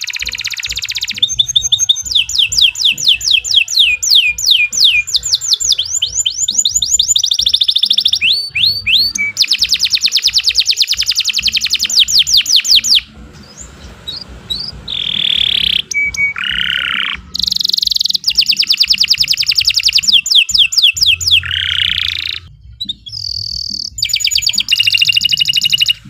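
Domestic canary singing a long song of fast trills and rolls: runs of rapid repeated high notes and quick sweeps, with a short break about halfway.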